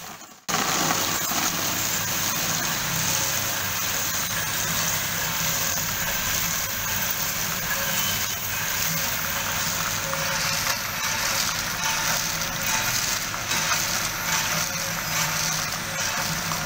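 Cocoa bean roasting machine running, with a steady motor hum under a continuous rushing rattle of dried cocoa beans being stirred and poured.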